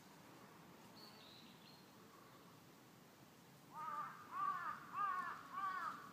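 A crow cawing four times in quick succession, starting about two-thirds of the way in, each caw rising and falling in pitch. A faint short high bird whistle comes about a second in.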